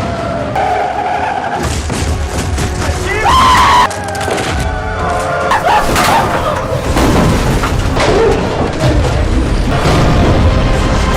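Music playing, with sudden changes in the sound about four and five and a half seconds in.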